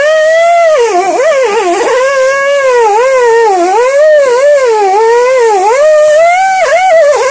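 Background music: a single gliding, wavering melody line with no beat.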